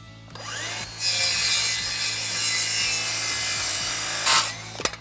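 Cordless circular saw whining up to speed, then cutting through a stack of four cellular PVC column boards for about three seconds, and winding down near the end.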